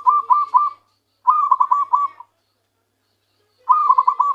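Zebra dove (perkutut) cooing in phrases of quick repeated notes: one phrase ends just under a second in, a second runs for about a second soon after, and a third starts near the end.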